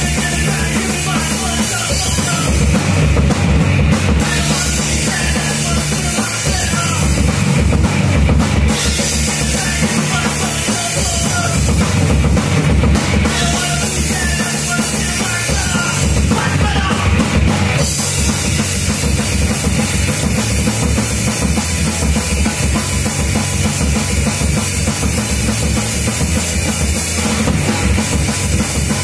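Live rock band playing loud without singing: electric guitars over a steady, driving drum kit beat.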